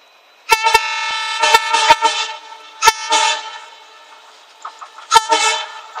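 WDM3D diesel locomotive's horn sounding in a string of loud blasts. There is a run of short toots in the first couple of seconds, another blast about three seconds in, and one more near the end.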